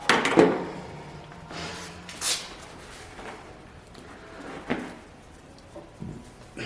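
A few separate knocks and clatters of metal parts being handled, a couple of seconds apart, as a hood hinge and its spring are worked on by hand.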